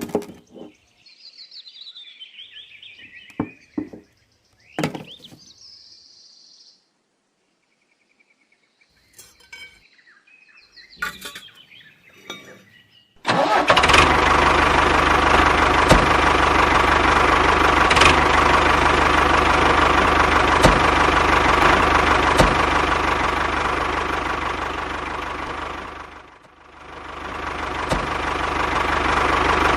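A small motor switches on suddenly about halfway through and runs loudly and steadily, with a faint click about every two seconds, briefly dropping away near the end before picking up again. Before it starts there are only scattered faint handling sounds.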